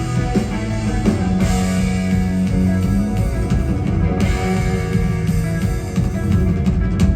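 Live rock band playing the instrumental close of a song on guitar and drums, with a final hit near the end.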